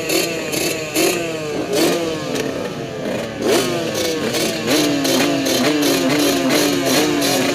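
Suzuki RM125 two-stroke motocross bike heard from the rider's helmet, revving hard and easing off again and again as the throttle is worked around the track. About halfway through the bursts come quicker, roughly two a second.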